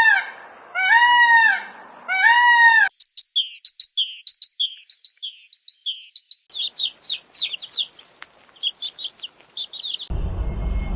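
Animal calls: three loud, arching calls in the first three seconds, then a fast run of short, high chirps. About ten seconds in the calls stop and a steady background noise takes over.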